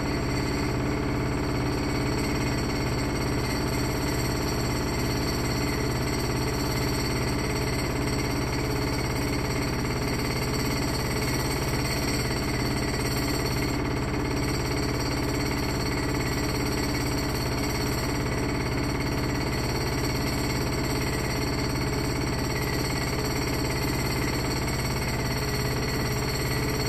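Haier HLC1700AXS washer/dryer combo in its final spin, the drum turning fast with a steady motor hum and whine made up of several tones.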